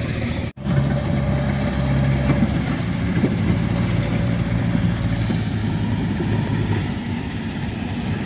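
JCB 3DX backhoe loader's diesel engine running steadily under load as the machine pushes and levels soil with its front bucket. The sound cuts out for an instant about half a second in.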